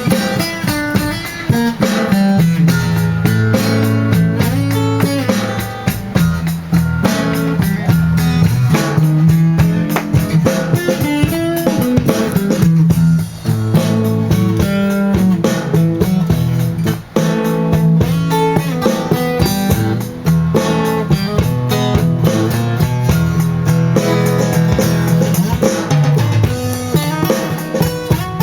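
A live blues band playing an instrumental passage: guitar over a drum kit, with a repeating low line underneath.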